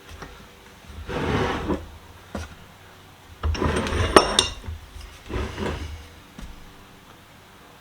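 The restored Reed No. 24 utility vise being shifted and turned on a workbench: three rubbing scrapes, the middle one the loudest and ending in a sharp metallic clink.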